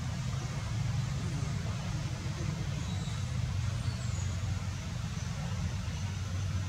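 Steady low rumble with an even hiss over it, and a few faint high chirps.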